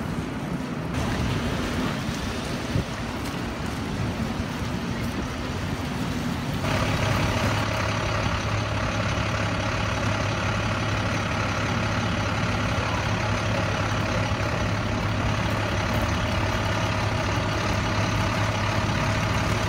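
City street traffic noise with a steady low engine hum that sets in abruptly about seven seconds in.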